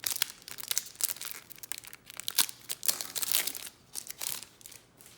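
Foil trading-card pack wrapper being torn open and crinkled by hand: irregular crackling and tearing that dies away shortly before the end.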